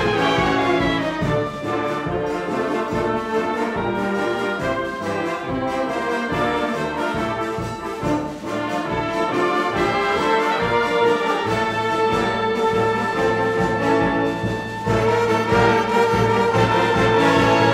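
Concert wind band playing a loud full-ensemble passage: brass chords from trumpets, French horns, euphoniums and tuba, with clarinets, over low recurring percussion accents. A falling run of notes opens the passage.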